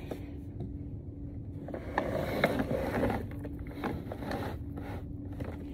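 Mechanical clicking and rubbing, like something being handled and adjusted, with a louder rustle about two seconds in over a steady low hum.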